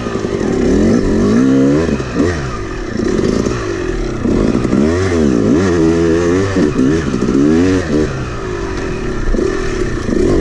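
Yamaha YZ250X two-stroke dirt bike engine ridden hard from the rider's seat, its pitch repeatedly climbing as the throttle opens and falling back as it shuts off.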